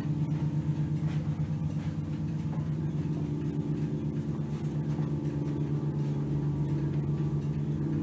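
A steady low drone made of several held tones.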